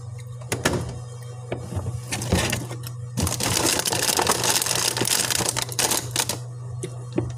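Things being handled inside an open refrigerator: scattered clicks and knocks, then from about three seconds in a dense stretch of crinkling and rustling lasting about three seconds, over a steady low hum.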